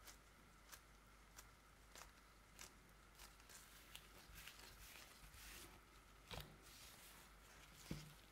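Quiet hand-work sounds of bread making: faint light clicks and taps about every half second, with two louder soft thumps near the end.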